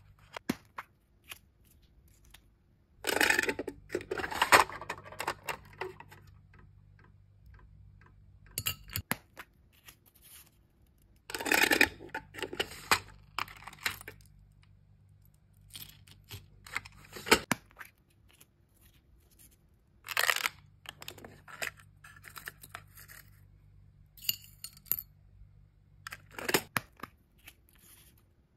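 Order-packing handling: plastic packaging crinkling and metal necklace chains and charms clinking, in bursts of a second or two with short pauses between.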